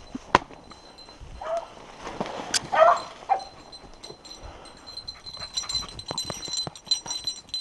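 Beagle hound giving a few short yelping calls, the loudest about three seconds in, with a sharp knock just before.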